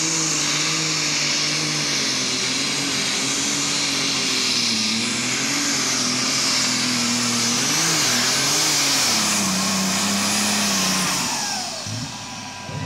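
Super Stock pulling tractor's turbocharged engine running hard under full load, its note wavering as the engine speed rises and falls, with a strong high turbo whine over it. About eleven seconds in, the engine note drops and the sound falls away.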